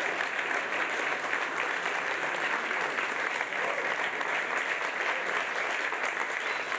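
An auditorium audience applauding steadily: many hands clapping at once, an even wash of claps with a few whoops, in response to a product price announcement.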